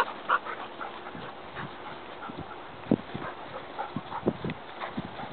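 A dog close by making small noises, with a few short, soft thumps: one about three seconds in and two more about four and a half seconds in.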